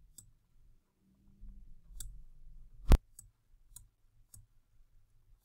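Computer mouse clicking several times at uneven intervals, the loudest click about three seconds in, with faint low handling noise between clicks.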